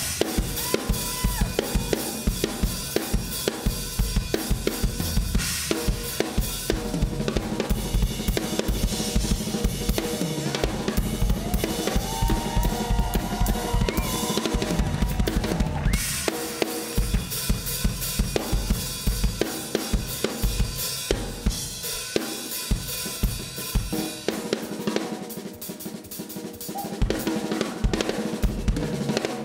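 Solo drum kit played fast and busy, with dense strikes on bass drum, snare and cymbals. About three quarters of the way through it briefly thins out and the bass drum drops away, then builds again.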